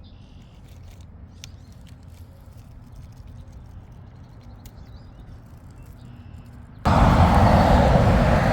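Quiet outdoor ambience with a low rumble and a few faint bird chirps, then, near the end, a sudden switch to the loud rushing rumble of an airplane passing low overhead.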